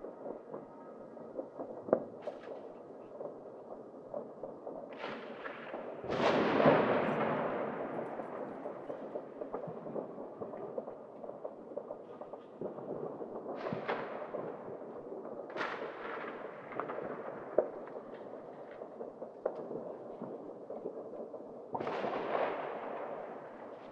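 New Year's Eve fireworks and firecrackers going off across city streets: a constant scatter of distant bangs and crackles, with several bigger booms that each trail off slowly. The loudest boom comes about six seconds in, with others around the middle and near the end.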